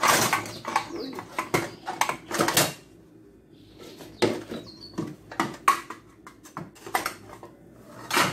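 Kitchen clatter: a quick run of sharp knocks and rattles of containers and lids being handled on a counter. It pauses about three seconds in, then picks up again with scattered knocks.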